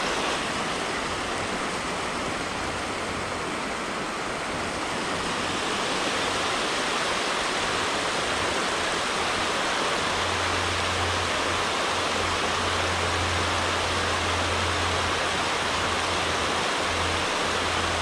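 Steady rushing of river water pouring over a concrete weir and breaking into foaming standing waves at its foot.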